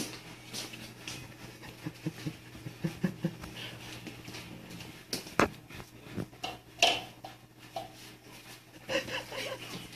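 Two house cats at plates of dry kibble: scattered short clicks and crunches of food being eaten, with a few brief cat vocal sounds, one about seven seconds in and another near the end, over a steady low hum.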